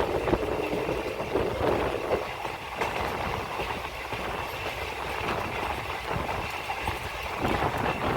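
Passenger express train running along the track, heard from aboard: a steady rumble of the moving carriage with occasional clicks of the wheels on the rails and a faint steady high whine.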